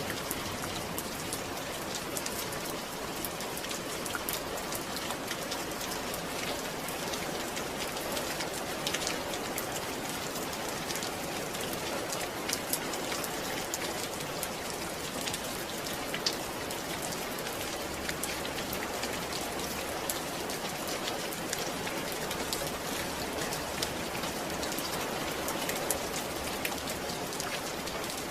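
Steady rain falling on a surface, a continuous hiss with many individual drops pattering through it.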